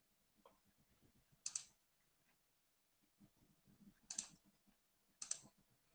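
Three faint, sharp clicks from a computer being operated at a desk, each a quick double click, about a second or more apart, against near silence.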